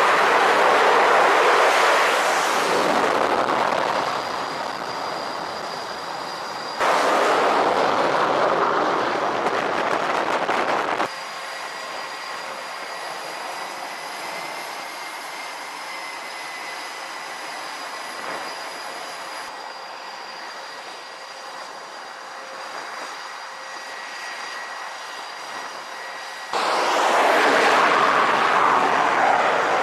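Jet engines of F/A-18 Super Hornets on an aircraft carrier deck: a loud, even roar of an engine at full power on the catapult, which breaks off abruptly and returns twice. Between the loud stretches comes a quieter spell of steady jet whine with a few high, steady tones.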